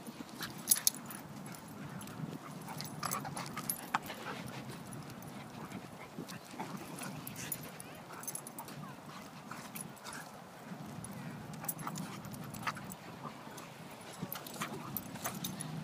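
Two dogs play-wrestling: dog sounds from the pair, with scattered sharp clicks and scuffs, the loudest a quick pair just under a second in.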